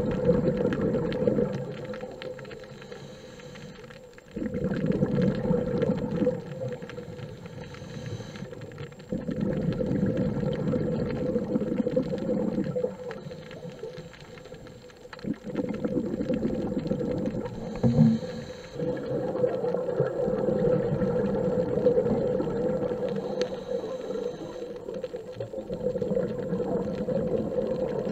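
Scuba diver's regulator breathing heard underwater through a camera housing: noisy rushes of exhaled bubbles lasting two to four seconds, alternating with quieter inhalations, over a steady hum.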